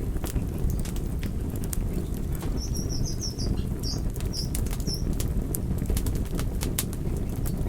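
Campfire burning: a steady low rumble of flames with frequent sharp crackles and pops of the wood. A short run of faint high chirps comes about halfway through.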